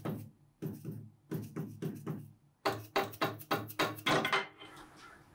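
Mallet giving a quick run of light taps, about four or five a second, on a stuck metal block of a jointer infeed table to break it loose. There is a short pause about two and a half seconds in, and the taps stop about four and a half seconds in.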